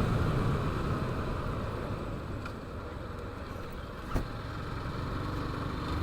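Motorcycle riding with engine and road noise. The noise eases off around the middle and builds again toward the end, with a single sharp knock about four seconds in.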